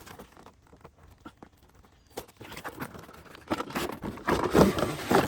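Toy packaging being opened by hand: cardboard and plastic tearing and crinkling, with scattered small clicks at first and louder, busier rustling over the last couple of seconds.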